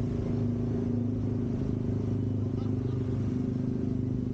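A small motorbike engine running steadily at a low, even cruising speed, with slight shifts in pitch.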